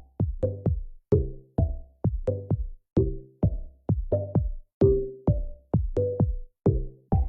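Background music: an electronic track with a steady drum-machine beat, about two hits a second, each carrying short pitched bass and synth notes.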